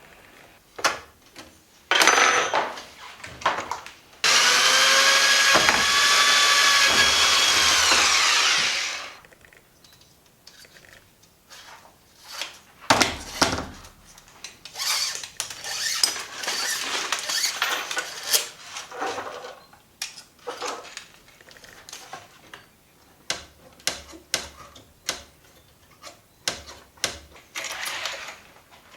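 Power drill running: a short burst, then a steady run of about five seconds that winds down. After it, a long string of clicks and knocks from tools and metal parts being handled.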